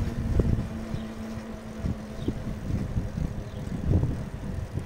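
Wind buffeting the microphone of a camera moving along on a bicycle, in uneven low gusts, with a faint steady hum underneath.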